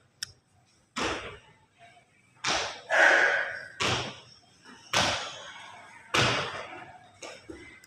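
Shoes landing on a bare concrete floor as a girl jumps along a line of cones in a netball footwork drill: a series of sharp, echoing thuds, about one a second.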